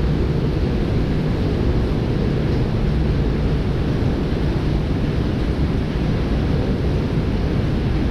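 Steady roar of a fast-flowing river, an even low rushing noise that does not change.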